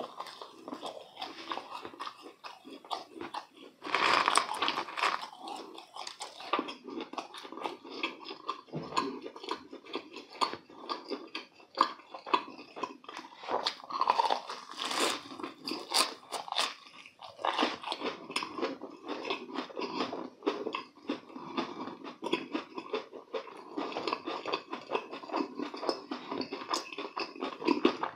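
Deep-fried croquettes with a coarse breadcrumb crust being bitten and chewed close to the microphone: continuous crisp crunching and chewing, with louder crunchy bites about four seconds in and again near fifteen seconds.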